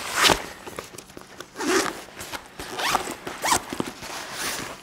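Zipper on a Garmin extra-large ice fishing sonar bag being zipped closed in about five short pulls.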